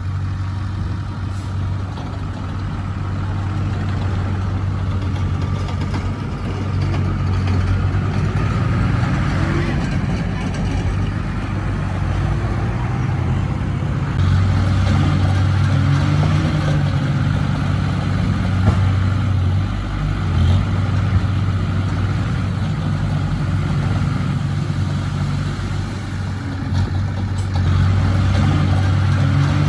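Diesel engine of heavy earthmoving machinery running continuously, its low drone rising and falling in strength as the load changes.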